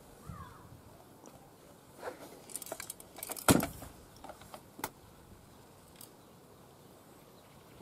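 Light clinking and clicking of small hard objects being handled, bunched from about two seconds in to about five, with the sharpest click about three and a half seconds in.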